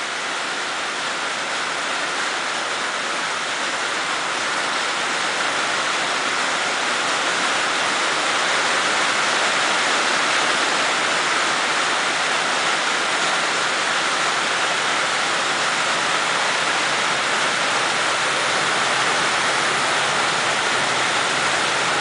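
Heavy rain pounding on a steel roof: a loud, steady downpour hiss that grows a little louder over the first several seconds, then holds.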